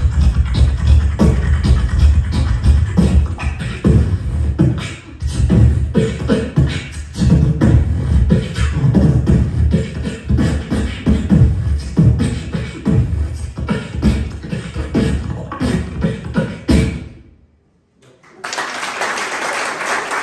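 Solo beatboxing into a handheld microphone over a PA: deep bass hits and sharp clicks and snare-like sounds in a steady beat, stopping abruptly about 17 seconds in. After a second's pause the audience breaks into applause.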